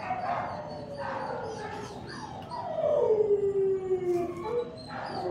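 Dog vocalising in excitement: a few short calls, then one long drawn-out howl that falls steadily in pitch, and a brief call near the end.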